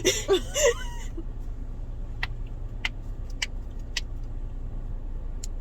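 A short squeaky, warbling voice sound in about the first second, then a handful of sharp single taps spaced a little over half a second apart, made as ASMR, over the steady low hum of a car's cabin.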